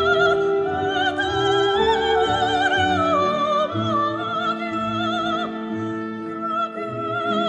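Soprano singing with a wide vibrato over an orchestra: the voice climbs, holds, and then falls away about halfway through, above held string and wind notes.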